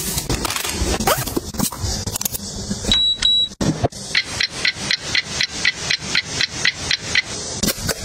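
Several sharp clicks and knocks, then a short high electronic beep about three seconds in. After it comes a fast, even run of electronic ticks, about four a second, lasting some three seconds.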